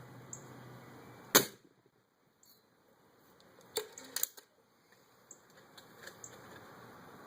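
A single shot from a suppressed Stoeger X20 break-barrel air rifle: one sharp, short crack about a second and a half in. A few smaller clicks follow a couple of seconds later.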